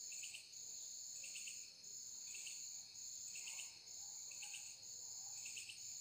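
Faint insect chorus: a steady high-pitched shrill, with a higher trill that cuts in and out and clusters of chirps about once a second.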